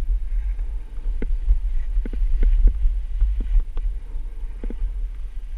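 Wind buffeting the microphone of a camera worn while skiing downhill: a steady low rumble, with a few short clicks and scrapes from the skis and gear on packed snow.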